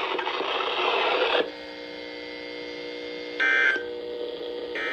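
Radio hiss that cuts off about a second and a half in, then two short digital data bursts about a second and a half apart over a faint hum: NOAA Weather Radio SAME end-of-message (EOM) tones, sent to close the weekly test alert.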